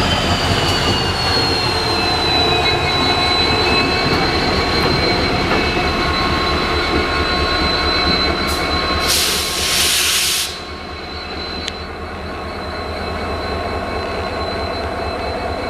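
EMD diesel locomotive running with a steady low hum and a high whine that falls in pitch over the first couple of seconds, then holds steady. About nine seconds in, a loud hiss lasts a second and a half and cuts off suddenly.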